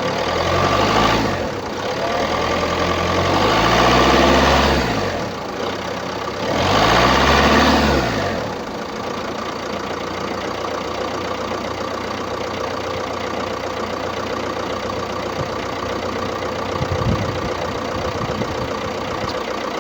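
Opel Combo's 1.6-litre diesel engine revved up and back down three times, then idling steadily. The uploader puts the unusual engine noise down to a clogged diesel particulate filter.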